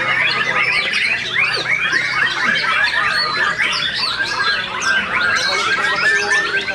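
Many caged white-rumped shamas singing at once, a dense, continuous chorus of overlapping rapid whistles, chirps and chattering notes.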